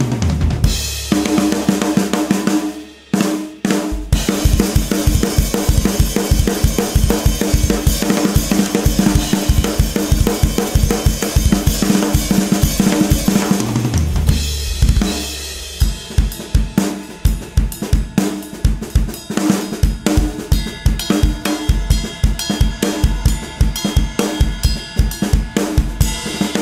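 Acoustic drum kit played as a steady beat of bass drum, snare and cymbals, with a Yamaha bass drum. The playing stops briefly about three seconds in and starts again a second later. Around the middle the beat gives way to a couple of seconds of ringing, then picks up again.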